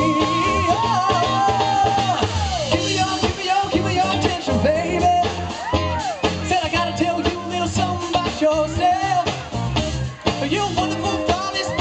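Live band of guitar, bass, piano and drums playing an upbeat pop-funk song, with a lead vocalist singing over it.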